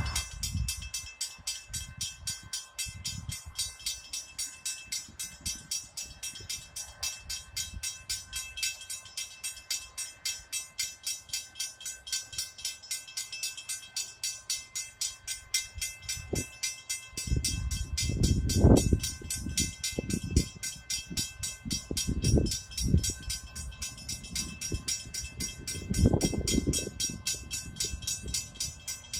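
A passing train with an even rhythmic beat of about two to three pulses a second, swelling into louder low rumbles about two-thirds of the way through and again near the end.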